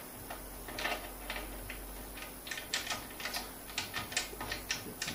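Light, irregular clicks and ticks as a metal ceiling spacer is screwed by hand onto a threaded stud, the spacer and stud tapping together; the ticks come more thickly in the second half.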